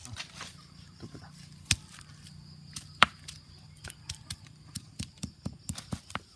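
A series of sharp knocks and clicks: two loud single strikes about a second apart early on, then a quicker run of lighter taps near the end.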